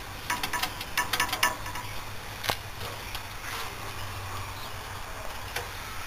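Scattered light clicks and taps of a hand handling a split air conditioner condensing unit's copper pipes and sheet-metal casing, busiest in the first second and a half, with one sharper click about halfway through, over a faint low hum.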